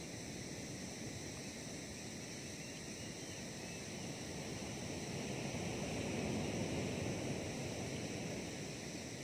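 Outdoor night-time-style ambience: insects chirring steadily under a low rushing noise that swells for a few seconds in the middle and eases off again.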